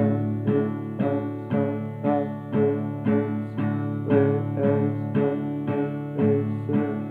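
Fender DG-8 solid spruce top acoustic guitar playing an instrumental, with chords struck in a steady rhythm about twice a second.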